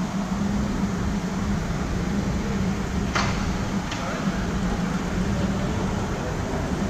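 Steady exhibition-hall background noise with a low hum and distant voices, broken by two short clicks about three and four seconds in.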